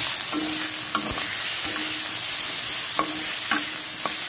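Potatoes and star fruit sizzling in oil in a steel wok, with a steady frying hiss. A metal spatula stirs them, scraping and clinking sharply against the pan about half a dozen times.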